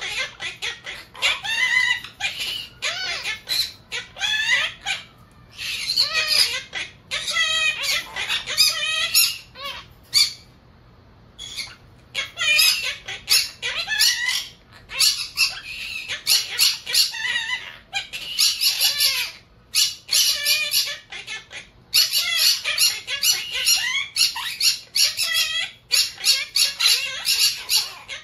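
Monk parakeets chattering in quick runs of short, high squawks and chirps, with a brief pause about ten seconds in.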